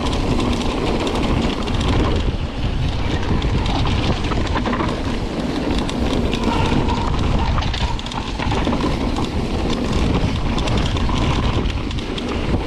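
Mountain bike rolling fast along a dirt and gravel trail: a steady rumble of tyres on the ground with constant small rattles and clicks from the bike, and wind on the microphone.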